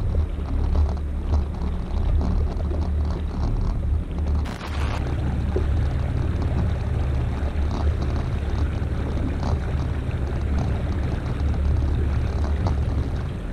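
Steady low rumble of wind and water noise on a fishing kayak's camera, with no clear motor whine in it. A brief sharp burst about four and a half seconds in.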